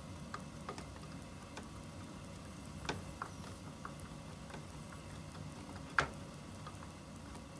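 The steady low hum of a room heater running, with scattered light clicks and ticks, the sharpest about six seconds in.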